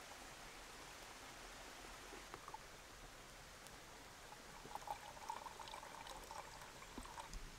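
Faint trickle of water squeezed through a Sawyer Squeeze filter into a camping mug, starting a little past halfway and stopping just before the end.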